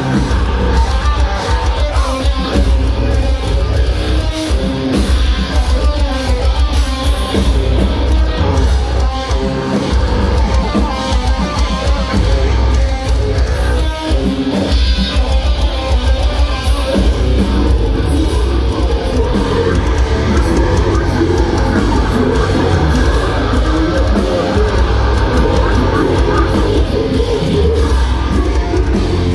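Heavy metal band playing loud, with distorted electric guitars over a heavy, dense low end.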